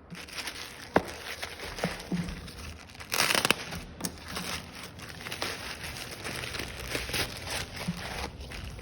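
Packaging being handled during an unboxing, crinkling, with scattered clicks and knocks. About three seconds in there is a louder half-second rustle.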